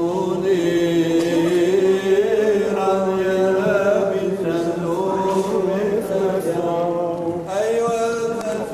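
Liturgical chanting: voices singing slow, long-held notes in unison, breaking off briefly a little past seven seconds in and then going on.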